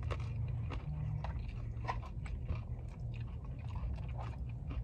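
Close-up mouth sounds of someone chewing a soft rice-and-chicken bowl: a string of small wet clicks and smacks.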